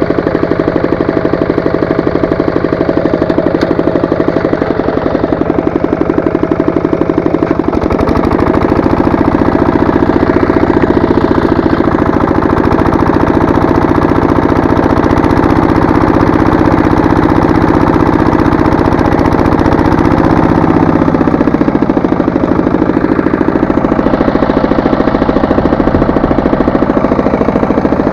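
Walk-behind tractor engine running with a rapid, even knocking beat. Its note changes about eight seconds in and bends lower again around twenty-one seconds.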